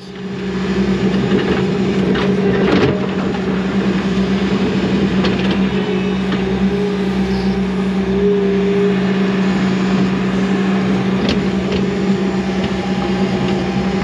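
Skid steer loader's diesel engine running with a steady drone, a couple of faint knocks about 3 and 11 seconds in.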